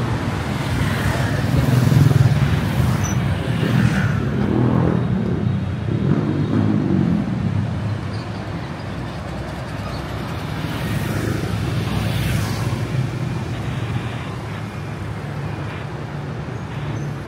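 Road traffic: vehicles passing steadily, loudest about two seconds in.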